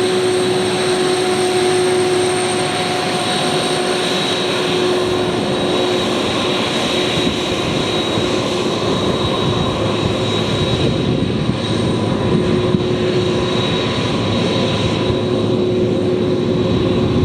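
Jet airliner engines running: a steady wash of engine noise with a few held whining tones, the deeper rumble growing stronger in the second half.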